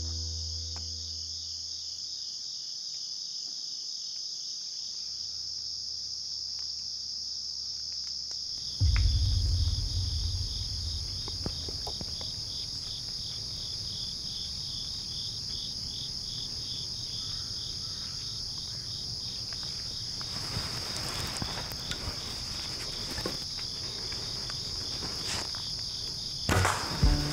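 Crickets and other insects calling in a steady high-pitched chorus, with one trill pulsing rapidly. A low rumble comes in suddenly about nine seconds in, and a short burst of noise comes near the end.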